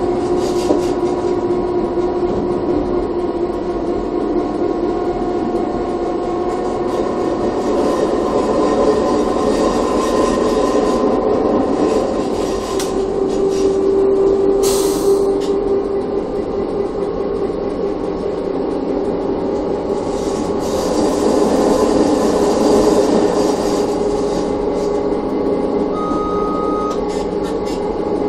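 Chemins de fer du Jura ABe 4/4 electric railcar running along the line, heard from its driving cab: a steady whine over the rumble of wheels on rail. A brief hiss comes about halfway through.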